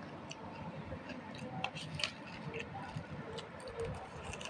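Eating at a steel plate of puffed rice and omelette: faint, irregular small clicks and crackles, a few seconds apart.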